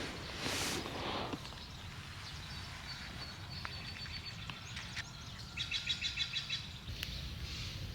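Wild birds calling. One gives a thin, held high note, then a quick run of about nine repeated chirps comes near the end, over a faint steady outdoor hiss.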